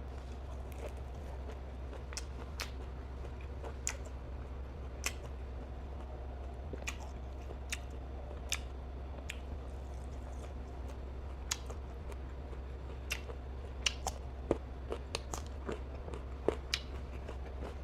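Close-up mouth sounds of a person chewing nem chua, a firm, chewy fermented pork roll. Short, wet clicks come at irregular intervals over a steady low hum.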